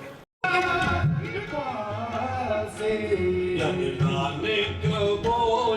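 A Hindi song with a male voice singing over instrumental accompaniment. It drops out to silence for a split second just after the start, then comes back in.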